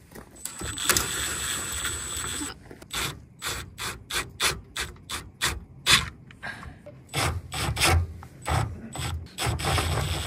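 Ratcheting clicks of a travel trailer's jack being cranked, a quick regular clicking of about three or four a second that turns heavier and more irregular, with low thuds, later on.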